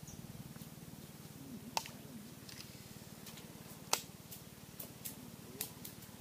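Shimano Metanium XG baitcasting reel cranked to retrieve a lure: a faint steady whir with several sharp clicks.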